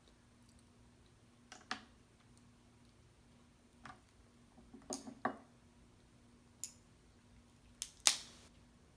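Boiled crab leg shells being snapped and picked apart: a handful of separate sharp cracks and clicks with short pauses between them, the loudest near the end.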